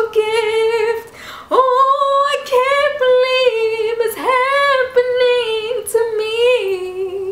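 A woman singing unaccompanied, in several long held notes that bend in pitch, with a short breath pause about a second in.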